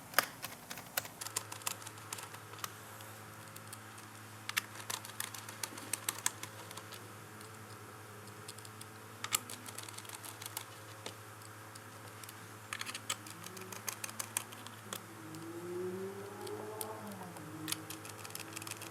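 Precision screwdriver driving small hinge screws into a laptop chassis: irregular light clicks and taps of metal on metal and plastic, in scattered clusters.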